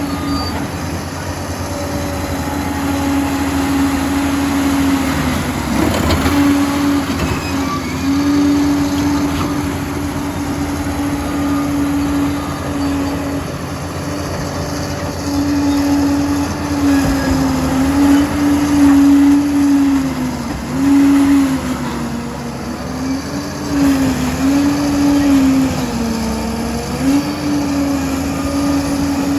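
Liebherr 746 crawler dozer working: its diesel engine and drive run loud and steady with a whine that dips in pitch several times in the second half as the machine takes load and recovers. A single clank about six seconds in.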